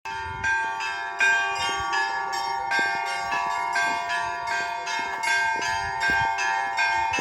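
Russian Orthodox church bells ringing in a quick peal, about four strikes a second over a lingering ring.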